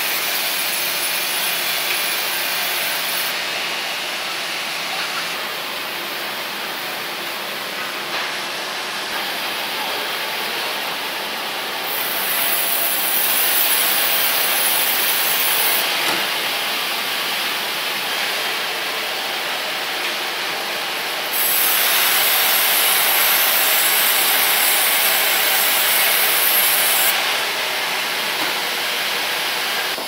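Sawmill band resaw running and cutting through wooden planks: a loud, steady noise of machinery and blade in wood that shifts abruptly several times.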